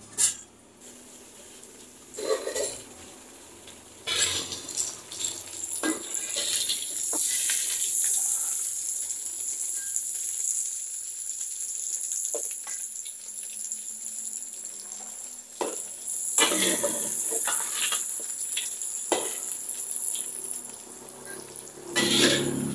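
Pieces of cassava deep-frying in hot oil in an aluminium wok: a steady sizzle that sets in about four seconds in. A metal spatula clinks and scrapes against the wok now and then as the pieces are turned.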